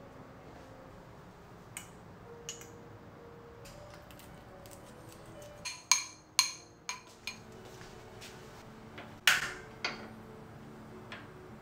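Metal spoon clinking against a glass mixing bowl while salad dressing is mixed, a few light taps early and a quick run of sharp ringing clinks around the middle, then one louder clatter about nine seconds in. Soft background music plays underneath.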